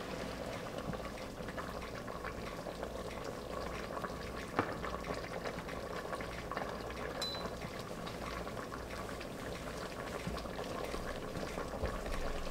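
Thick cornstarch-thickened sweet and sour sauce bubbling steadily in an Instant Pot's inner pot, a dense crackling simmer. A single sharp knock about four and a half seconds in.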